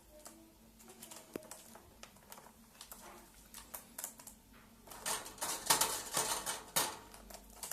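Budgie's beak and claws clicking and tapping on the wire bars of its cage, scattered light ticks that thicken into a quick run of taps for about two seconds near the end.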